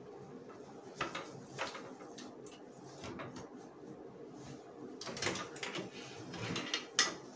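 Bubble-wrap packing rustling and crinkling in several short bursts as lacquered armour pieces are handled and lifted out of a cardboard box, with a sharp knock near the end, over a low steady hum.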